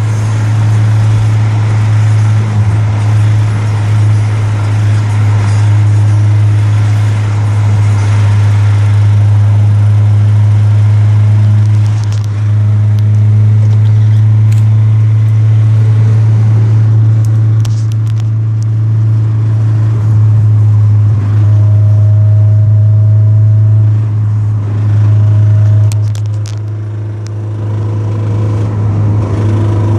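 Honda Civic with a rattle, over a steady low hum from the car, with occasional short ticks and clicks from the rattling part.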